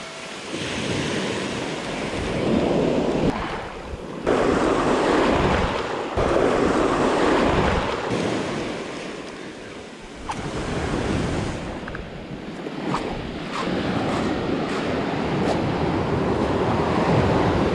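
Surf washing onto a beach, rising and falling in surges every couple of seconds, with wind buffeting the microphone.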